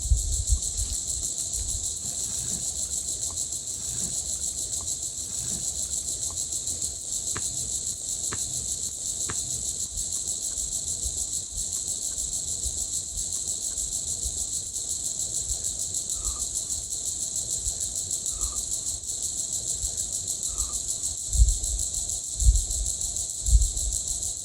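Crickets and other insects trilling in a steady, fast-pulsing high chorus, with a few faint short calls in the second half. Near the end come three low thumps about a second apart, louder than the chorus.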